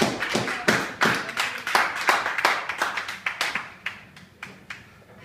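Sharp hand claps and shoe taps on a wooden dance floor, a few strikes a second at an uneven pace, thinning out and fading toward the end.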